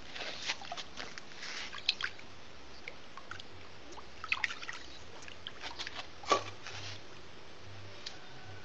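Koi crowding and jostling at a pond's surface, making irregular small splashes and water noises at the surface, the loudest about six seconds in.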